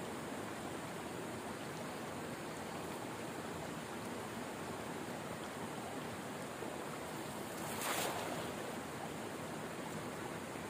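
Steady rush of shallow stream water flowing past, with one louder splash near the end as a thrown cast net lands on the water.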